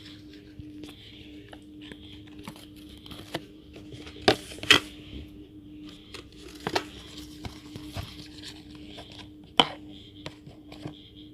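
Handling noises: scattered small clicks and crinkling, with a few sharp clacks about four and five seconds in, again near seven seconds and near the end, over a steady low hum.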